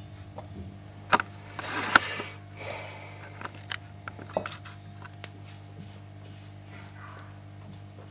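Small hand tools handled at an electronics bench: scattered light clicks and a short scrape as tweezers and a soldering iron are moved and the iron is set back in its stand. A steady low hum runs underneath.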